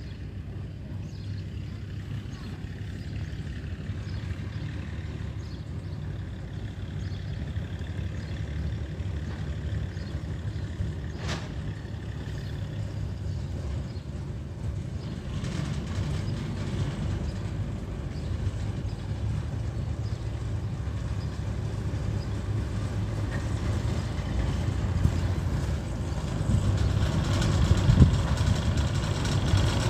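Small diesel shunting locomotive's engine running as the locomotive moves slowly along the track, growing steadily louder as it comes closer, with a knock near the end.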